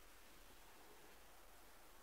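Near silence: faint steady hiss and room tone.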